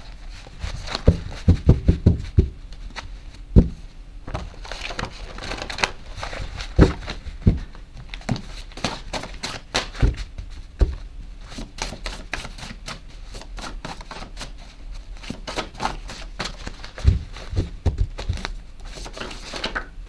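Tarot cards being shuffled and handled by hand on a table: a run of irregular flicks and taps, with a few louder knocks in the first few seconds and thicker runs of clicking later on.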